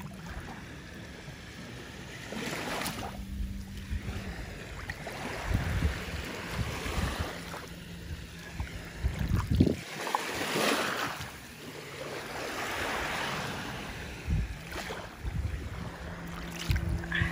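Small waves washing up on a sandy shore, the rush swelling and fading several times, with wind gusting on the microphone.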